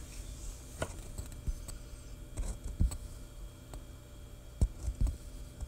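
Quiet handling noise near the microphone: scattered soft clicks and a few low thumps over a steady low hum of room tone.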